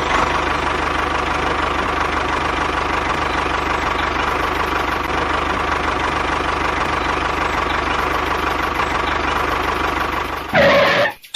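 An engine running steadily at idle with an even low knocking rhythm. Near the end there is a brief louder burst, and then it cuts off suddenly.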